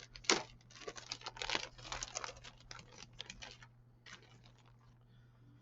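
Plastic model-kit parts sprues and their packaging being handled and pulled out: rapid light clicks and rustles of styrene and plastic, busy for about three and a half seconds, then only a few faint ticks.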